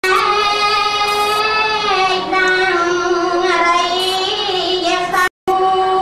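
A woman singing solo into a microphone, slow and drawn out, holding long notes that step slowly down and up in pitch. The sound cuts out for a moment near the end.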